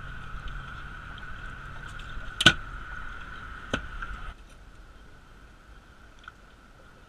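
Two sharp knocks about a second apart, the first the louder, as the camera is handled and bumped against the boat; a steady hum underneath drops away about four seconds in as the camera is set down.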